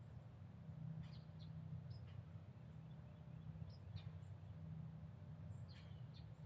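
Faint, scattered short bird chirps over a steady low rumble.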